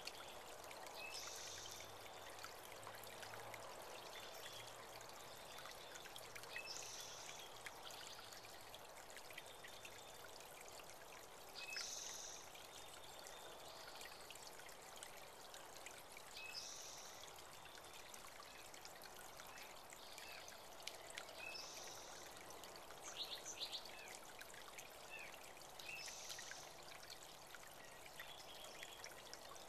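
Water from a small spring-fed creek trickling steadily, with a bird giving a short high chirp about every five seconds.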